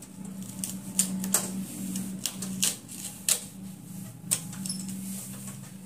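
Irregular sharp plastic clicks and taps, about half a dozen, as thin CCFL backlight tubes are unclipped from the plastic lock holders of an LCD TV backlight panel, over a low steady hum.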